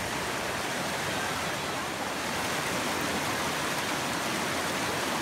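Rushing river water running over small rocky rapids, a steady even rush.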